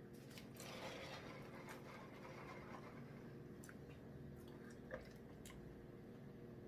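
Faint eating sounds: quiet chewing with small scattered clicks, one a little louder about five seconds in, over a low steady hum.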